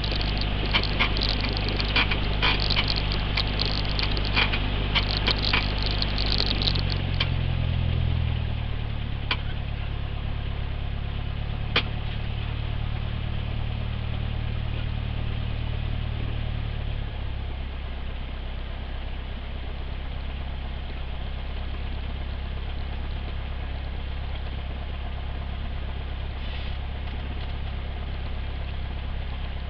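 Cessna 172's piston engine and propeller running at low taxi power, with a run of sharp clicks in the first few seconds. The engine note rises briefly about seven seconds in, then drops to a lower, steady idle about seventeen seconds in.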